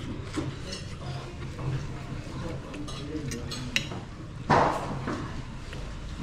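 Cutlery and crockery clinking lightly at a café table, with low background chatter from other diners. About four and a half seconds in there is a brief, loud rush of noise.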